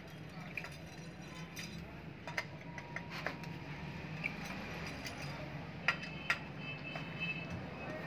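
Scattered light metallic clicks and clinks as a T-handle socket wrench is worked on the bolts holding the motor winding inside an opened fridge compressor, with a short metallic ring a little after six seconds in. A steady low hum runs underneath.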